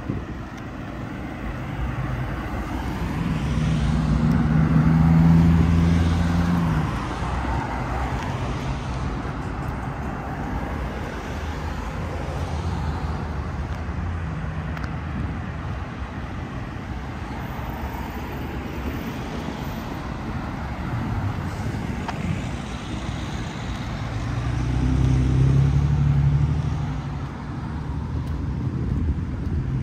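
Steady city road traffic, with two vehicles passing close, their engines louder for a few seconds: one about four seconds in, the other near the end.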